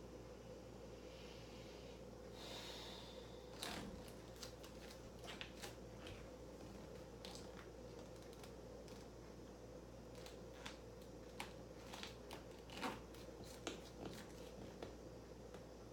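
Quiet room tone with a faint steady hum. From about four seconds in come scattered soft clicks and ticks, the loudest about three seconds before the end.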